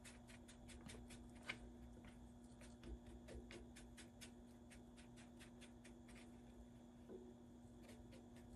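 Faint, quick ticks and scrapes of a paintbrush mixing paint on a paper-plate palette, over a steady low hum.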